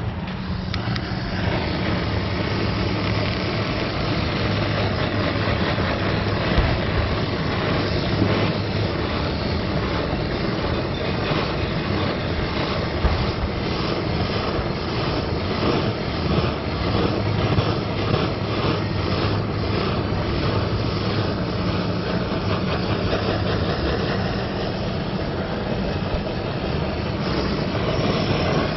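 A steady mechanical drone with a low hum, loud and unbroken throughout.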